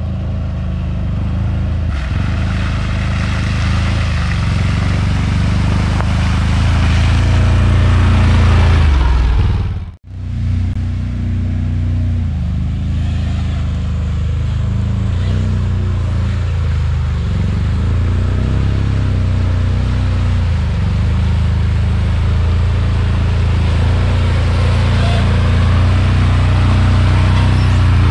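Four-wheeler (ATV) engine running while riding, with a rushing noise over it, getting louder over the first several seconds. It breaks off abruptly for a moment about ten seconds in, then runs on steadily.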